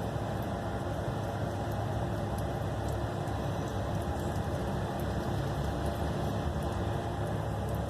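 Steady low rumbling background noise with a faint hum, unchanging throughout, with no distinct knocks or events.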